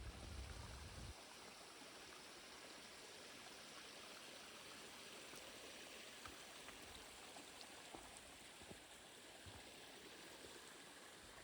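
Faint, steady rushing of a river, with a low rumble in the first second.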